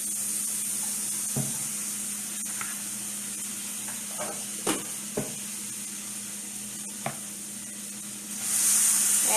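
Butter sizzling as it melts in a hot pan, a steady hiss that grows louder near the end, with a few short scrapes and taps of a knife against the pan.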